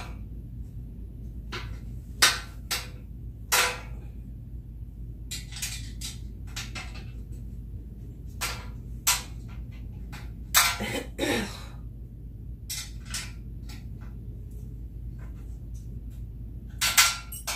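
Flat-pack furniture parts being handled and fitted together: scattered sharp knocks and clicks, a few of them louder, with a longer scraping sound a little past the middle. A steady low hum runs underneath.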